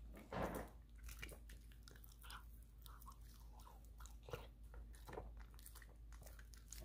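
Small dog chewing and smacking on a bite of meatloaf: faint, irregular wet chews and lip smacks.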